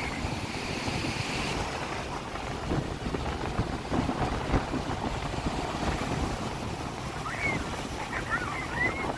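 Sea surf breaking and washing up the sand, with wind rumbling on the microphone.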